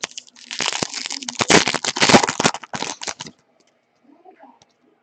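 Wrapper of a trading card pack crinkling and crackling as it is torn open and pulled apart, for about three seconds before stopping.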